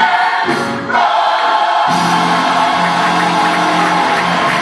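Church choir singing a gospel song, many voices holding long notes, with the sound filling out lower down about two seconds in.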